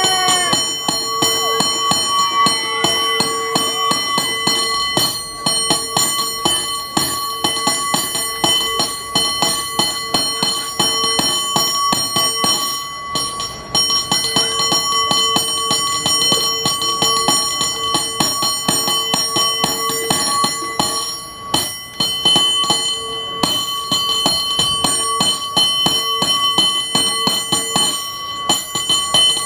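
San Francisco cable car bell struck in fast, rhythmic rolls of many strikes a second, its ringing tones sustained beneath the strikes, with a couple of short let-ups.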